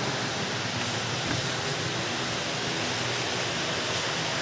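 Steady rushing noise of electric fans and air conditioning running in a shop.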